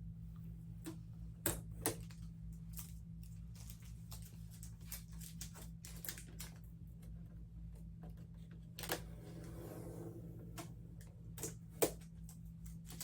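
Packing tape being peeled off the plastic body of a new vinyl cutting machine: irregular crackling and ticking as it lifts, with a few louder clicks and taps of handling, over a steady low hum.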